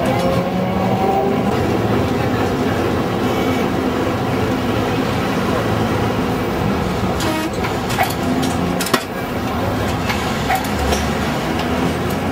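Old-style Dalian electric tram running with a steady rumble of motor and wheels on the rails. Two sharp clicks come about eight and nine seconds in.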